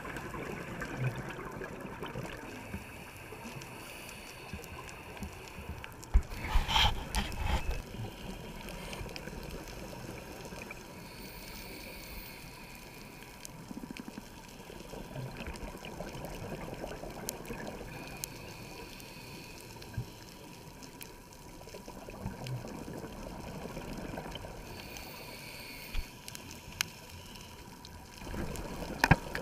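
Scuba diver's regulator breathing heard underwater through the camera housing: slow recurring inhale hisses and bubbling exhales, with a loud burst of exhaust bubbles about six seconds in and another near the end.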